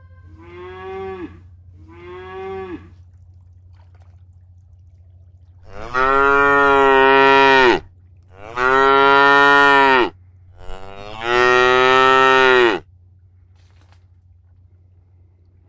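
Cattle mooing: two short calls, then three long, loud moos of about two seconds each, starting some six seconds in.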